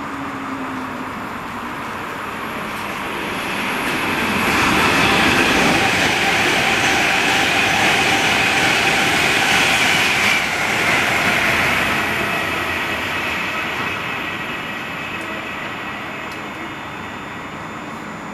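Passenger train passing through the station at speed: the rush of wheels on rail builds over a few seconds, holds loud for several seconds with a high hiss, then fades away.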